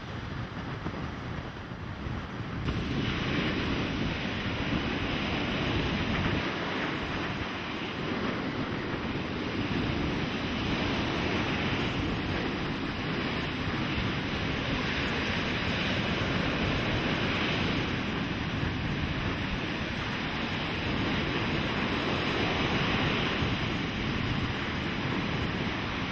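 Heavy surf breaking and washing up a sandy beach, a continuous rushing that swells and eases with the waves. It grows louder and fuller about three seconds in.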